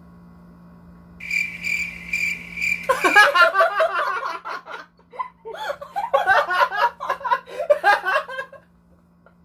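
A man and a woman laughing hard in repeated bursts, with a short lull in the middle. Just before the laughter breaks out there is a high, evenly pulsing squeak lasting about two seconds.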